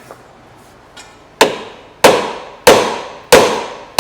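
Hammer blows on a seized part of the car's front suspension, struck to break it free. Four hard strikes begin about a second and a half in, about two-thirds of a second apart, each with a short metallic ring.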